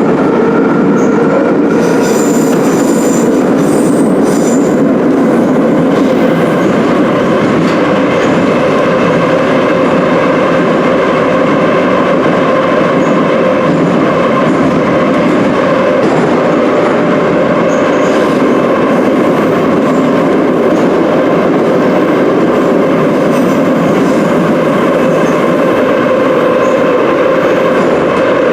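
Moscow Metro Ezh3/Em-508T subway train running at speed through the tunnel between stations, heard from inside the car: a loud, steady rumble of wheels on rails with a humming drone. A brief high squeal of the wheels comes about two seconds in.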